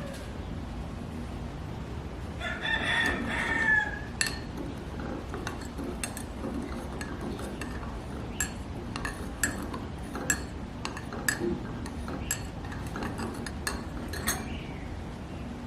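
A rooster crows once, about two and a half seconds in, the loudest sound here. After it comes a scattered run of sharp, light clicks and clinks over a steady low rumble.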